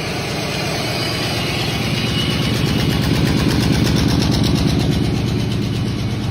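Car engine running steadily with a rapid, even firing pulse, growing a little louder a few seconds in.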